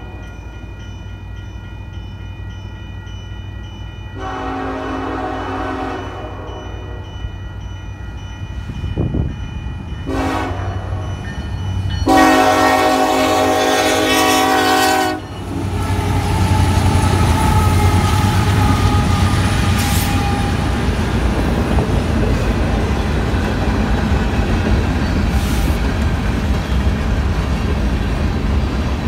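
Nathan K5LLA five-chime air horn on a Union Pacific EMD SD70ACe sounding the grade-crossing signal: a long blast about four seconds in, a short one near ten seconds, then a final long, loudest blast, over a crossing bell. About halfway through the locomotives reach the crossing and the train passes with a loud, steady rumble of diesel engines and wheels on rail, with clickety-clack of the cars.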